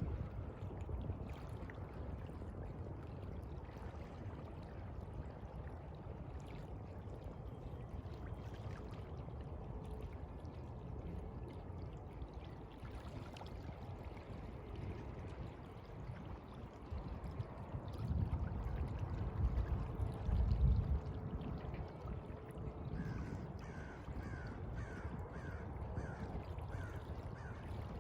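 Steady low wash of the sea with wind, swelling louder for a few seconds past the middle. Near the end a bird gives a quick series of about seven short, falling calls.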